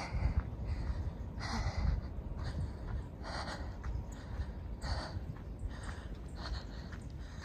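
A person's breathing, one audible breath about every second and a half, over a steady low rumble of wind on the microphone.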